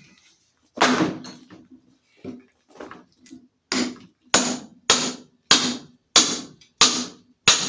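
Hammer striking the back of a hatchet driven into an ash log to split it, with a ringing metallic knock on each blow. A few uneven blows come first, then a steady run of about seven blows, roughly one and a half a second.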